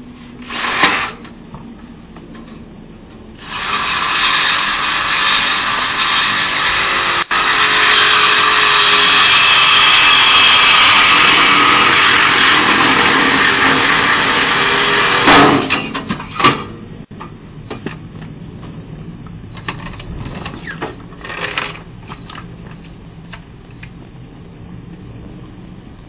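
A power tool cutting metal under a jacked-up Toyota Prius: a short burst about a second in, then about twelve seconds of steady cutting that grows louder partway through and ends in two sharp clanks. Typical of an exhaust pipe being cut through to steal the catalytic converter.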